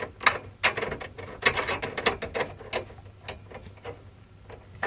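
Irregular clicks, taps and short rattles of hard parts being handled and fitted back into a desktop computer case.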